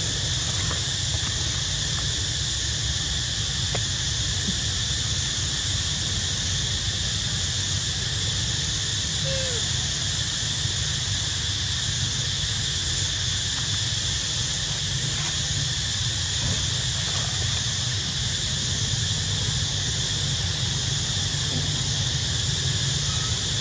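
Steady, unbroken insect chorus, a high continuous drone with no breaks, over a low steady rumble.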